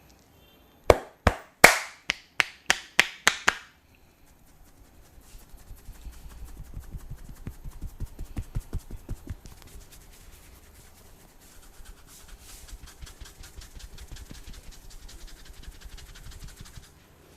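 A barber's hands giving a head massage: about nine sharp slaps in quick succession, each fading fast, then two longer stretches of faster, softer rapid tapping.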